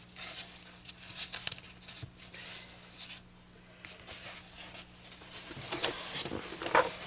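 Fabric being handled and rustled in irregular bursts while it is worked around the edge of a styrofoam board, with a short quiet pause about three seconds in.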